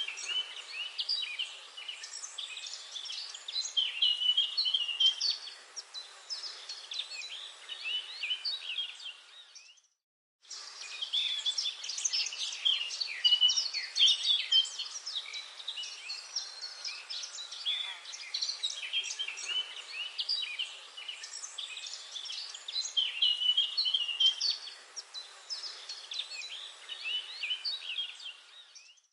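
Forest bird chorus: many birds chirping and trilling over one another, with no low sounds beneath them. The sound cuts out completely for about half a second roughly ten seconds in, and again at the very end.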